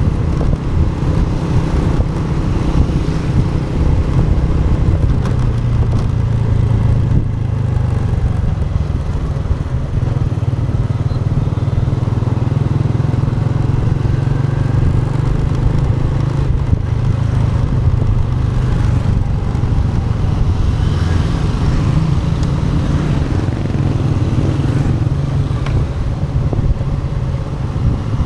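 Motorcycle engine running steadily at town cruising speed, heard on board the bike, its note rising and falling a little with the throttle, over wind and road noise.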